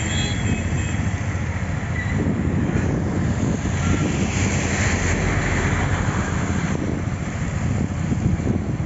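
Steady wind rumble on the microphone over the noise of road traffic, recorded from a vehicle moving along a busy street.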